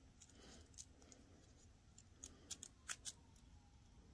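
Faint ticks and rustling of fingers flipping the stiff little paper pages of a miniature book: about half a dozen light ticks, most of them between two and three seconds in.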